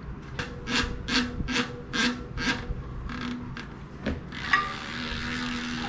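Repeated rubbing strokes, about six at roughly two a second, as a part of a bicycle rear hub is scrubbed clean by hand. A single click comes near the end, followed by a steady hiss.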